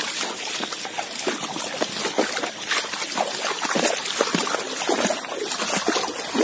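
Water splashing and sloshing in quick, irregular bursts as someone wades and pushes through a flooded field channel, over a steady high hiss, growing louder toward the end.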